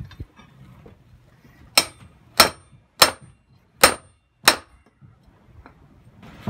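Five hand-hammer blows on red-hot steel plate over a small anvil, a little under two a second, each a sharp strike with a short high ring.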